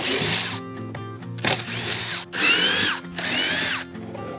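Cordless drill-driver backing screws out of a plywood jig, in several short bursts, each a whine that rises and then drops off as a screw comes free. Background music plays underneath.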